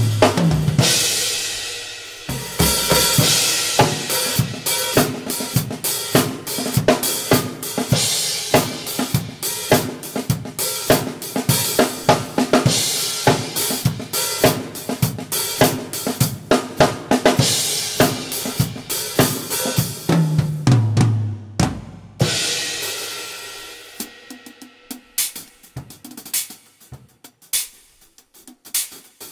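Acoustic drum kit played alone, no other instruments: a driving groove of snare, bass drum, hi-hat and Sabian HHX cymbals, with tom fills near the start and about twenty seconds in. Around twenty-two seconds a cymbal rings out and fades, and the playing thins to sparse, quiet hits.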